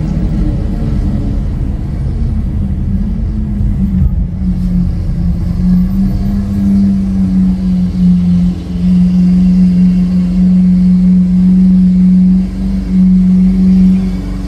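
Lamborghini Aventador SV Roadster's V12 with a Capristo exhaust cruising at steady low revs: a loud droning note that holds one pitch over a low rumble.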